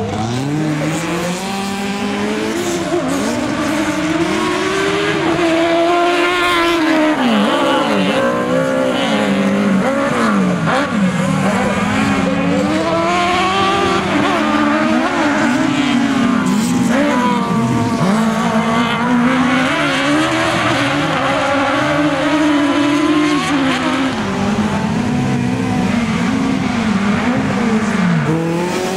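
Several autocross race cars racing on a dirt track, their engines revving up and dropping back again and again as they accelerate and brake through the corners, with overlapping engines at different pitches.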